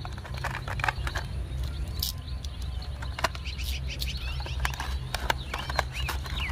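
A cardboard toy box being handled and its flap pried open: scattered clicks and crinkles of card and plastic. Birds chirp in the background over a steady low rumble.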